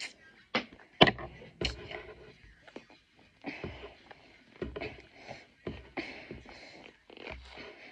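Scissors snipping through a hairband tangled in a doll's hair: four sharp snips in the first two seconds, followed by rustling and scratchy handling noise as the hair is worked free.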